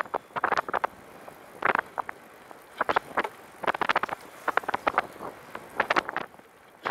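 Riding noise from a recumbent trike rolling along a paved path: irregular clusters of sharp rattling clicks, roughly one cluster a second.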